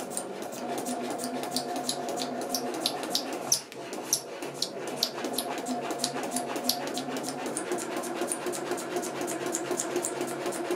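Janome DKS100 sewing machine running slowly, its needle punching through a paper practice sheet in a quick, even rhythm over the steady whine of the motor, with squeaking from the paper. The stitching dips briefly about three and a half seconds in, then carries on.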